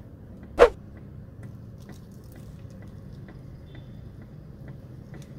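One sharp click about half a second in, followed by faint, even ticking at a few ticks a second.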